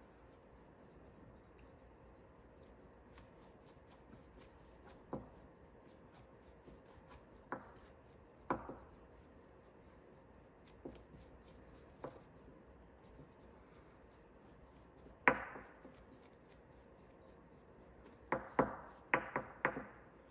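Paintbrush working white satin enamel paint onto a small wooden leg held in the hand: faint brushing and rubbing with scattered sharp taps and clicks, the loudest about fifteen seconds in and a quick run of them near the end.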